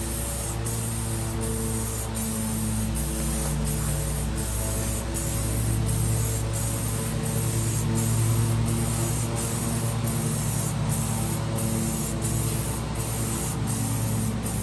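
Aerosol spray can hissing steadily as paint is sprayed onto a car's front bumper.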